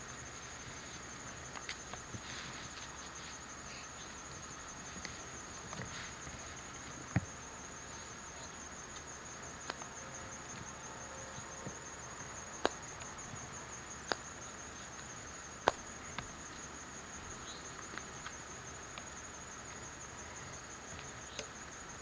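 Insects trilling steadily in a high, evenly pulsing drone, with a few sharp clicks and knocks scattered through.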